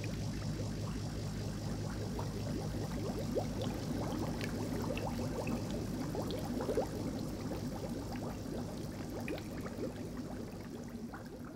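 Aquarium water bubbling: many small, scattered bubble blips over a steady low hum from the fish-tank filter.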